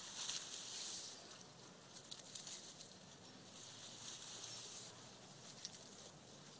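Dry grass rustling as it is gathered and run through the fingers, in two spells of hissy rustle with a few small clicks between.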